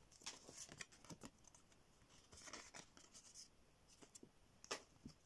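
Faint handling of Pokémon trading cards: soft slides and light flicks as the code card and cards are moved about, with one sharper tap about four and a half seconds in.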